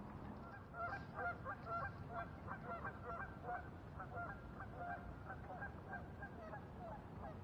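Geese honking: many short calls in quick succession, starting about a second in.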